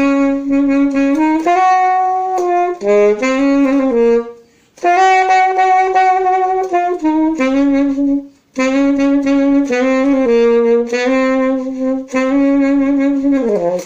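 Alto saxophone playing a melodic phrase of held notes, broken by two short breaths, with the last note sliding down at the end.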